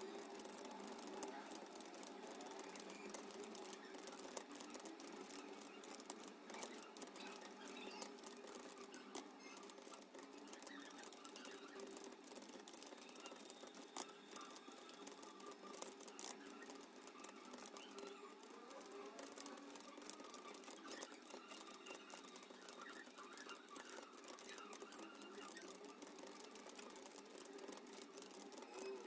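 Computer keyboard being typed on continuously: faint, rapid key clicks over a low background hum.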